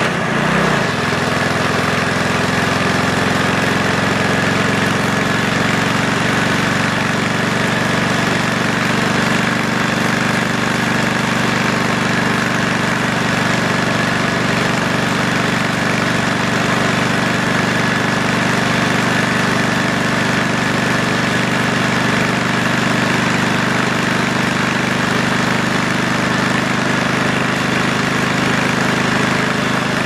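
Harley-Davidson WLC's 45-cubic-inch flathead V-twin exhaust at a steady cruise on the road. The engine note wavers briefly right at the start, then holds even.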